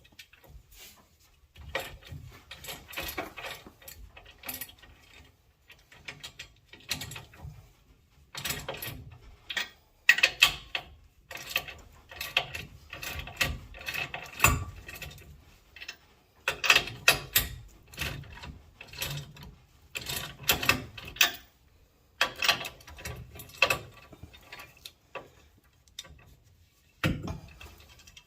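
Hand ratchet wrench clicking in repeated runs of strokes with short pauses between, as nuts on the truck's rear suspension are tightened down.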